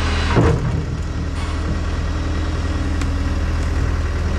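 Skid steer engine idling steadily, with a brief loud sound falling in pitch about half a second in.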